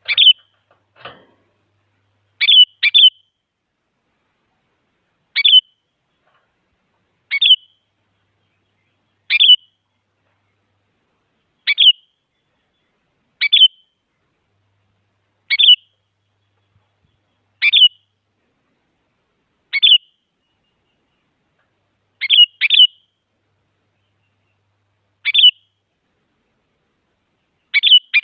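Sooty-headed bulbul (kutilang) giving short, sharp single chirping calls about every two seconds, twice as a quick double note, with clean silence between them.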